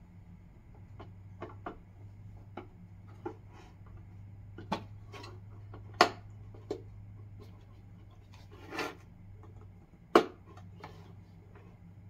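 Plastic parts of a bird feeder being handled and fitted together: scattered light clicks and knocks as the grid-shaped stand is seated on the feeder body, with two sharper clacks about six and ten seconds in and a brief rustle just before the second.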